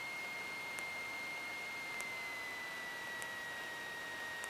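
A steady high electrical whine that drops slightly in pitch about two seconds in, with faint ticks about every 1.2 seconds and little engine rumble. This is the kind of noise a Cessna 152's alternator and flashing beacon put into the cockpit intercom audio while the engine idles during taxi.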